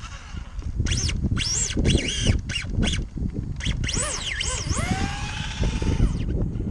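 Traxxas 2WD Stampede's brushless motor and drivetrain whining in short throttle blips, the pitch jumping up and down, then a steadier rising whine about five seconds in as the truck drives off. The owner believes the slipper clutch is burnt out.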